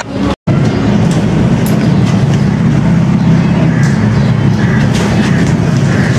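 Loud, steady low rumbling drone, the kind used in a horror film's soundtrack for suspense. It cuts out completely for an instant just after the start.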